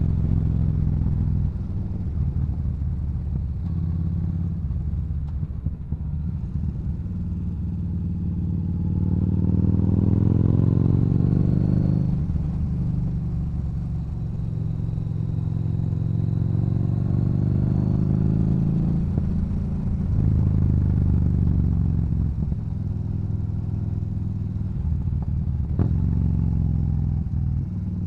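Yamaha Bolt's air-cooled V-twin with a Cobra aftermarket exhaust, heard while riding. The engine note climbs as the bike accelerates and drops back as the revs fall, twice, then settles into a steady cruise.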